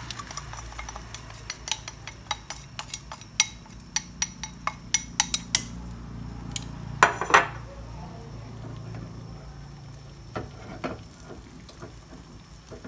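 A utensil clinking and scraping against a ceramic bowl and a small aluminium pan as beaten duck egg mixture is scraped out of the bowl into the pan: a quick run of sharp clinks, then a longer scrape about seven seconds in, with a few more clinks later. A low steady hum runs underneath.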